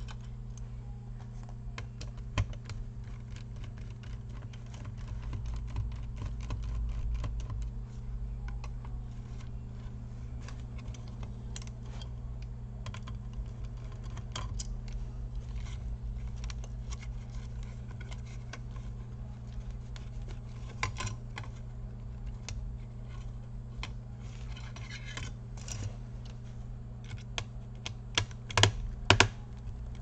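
Small sharp clicks, ticks and light scrapes of a screwdriver backing out the screws of a laptop cooling fan and of the plastic fan being unplugged and lifted out, with a few louder clicks near the end. A steady low hum runs underneath.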